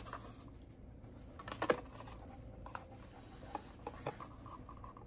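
Light handling of a cosmetic product's packaging: a few soft clicks and scratchy rustles as it is turned over in the hands, the loudest about one and a half seconds in.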